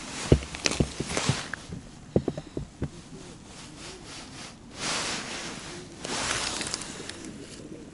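Close handling noise from ice-fishing tackle and clothing: a run of small knocks and thumps over the first three seconds, then two stretches of scraping, rubbing noise.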